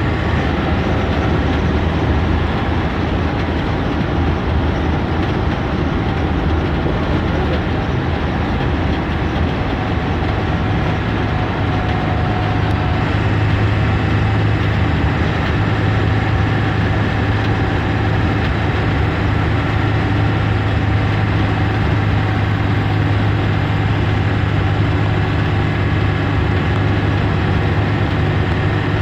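Cabin noise of a 2004 Blue Bird school bus on the move: the engine's steady low drone mixed with road and body noise, getting a little louder about halfway through.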